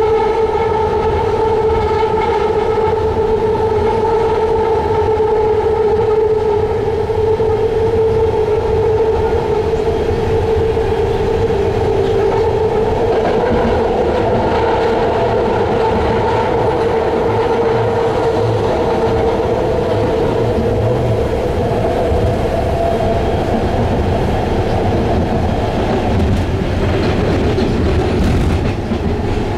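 BART train running at speed, heard from inside the car: a steady whine over a low rumble. Near the end the sound changes and dips briefly.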